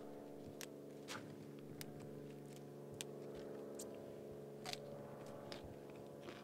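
Pruning shears snipping broccoli stems: a series of short, sharp clicks at uneven intervals, over a faint steady low hum.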